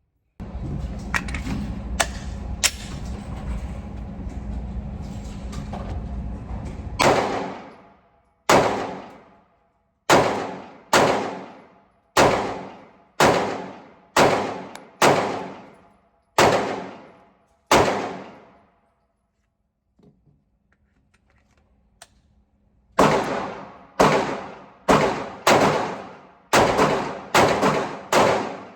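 Glock 43X 9mm pistol fired in an indoor range booth: about ten shots roughly a second apart, each with a long echoing tail, then after a short pause a quicker string of about eight more. Before the shooting there is a steady rushing noise with a few sharp clicks.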